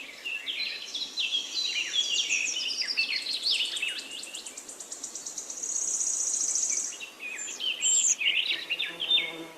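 Birds singing outdoors: a busy mix of quick chirps and warbles, with a long, rapid, high trill through the middle.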